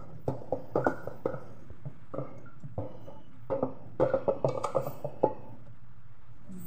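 Hands kneading and squeezing sticky minced-meat dimsum filling mixed with flour in a pot: wet squelching and pressing with light knocks against the pot, in uneven spells of quick strokes and a lull near the end.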